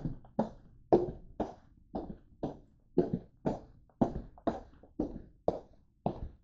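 Footsteps in open-toed sandals on a hard floor: a steady walk of about two short, sharp steps a second.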